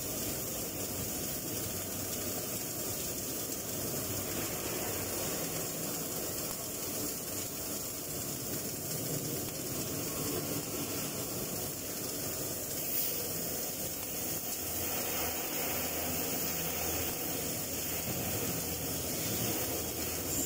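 Electric arc welding an overhead butt joint in steel plate: the arc gives a steady, unbroken hiss.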